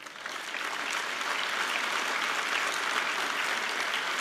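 Large audience applauding: dense, steady clapping that swells over about the first half second.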